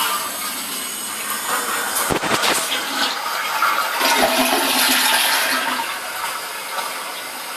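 Toilet flushing, set off by an RSTO automatic sensor flusher: water rushes into the bowl, with a few low knocks about two seconds in, then eases to a steady hiss near the end.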